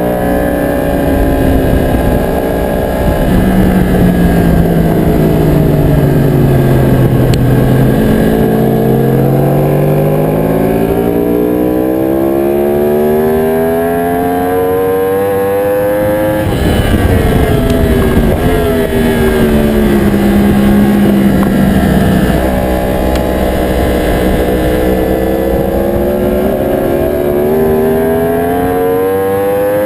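Aprilia Tuono motorcycle engine ridden hard. Its pitch climbs for several seconds, falls away, and climbs again as the bike accelerates and slows, over a steady rush of wind noise.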